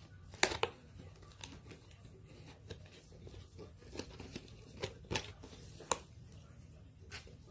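Packing tape on a cardboard shipping box being slit open with a hand-held blade, heard as irregular sharp clicks and scrapes as the box is worked open.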